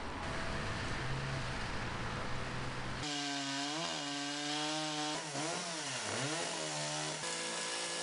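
A chainsaw engine running and being revved, its pitch repeatedly dipping and rising as the throttle is worked while cutting through tree limbs. Before that, for about the first three seconds, there is a steadier hum under a hiss.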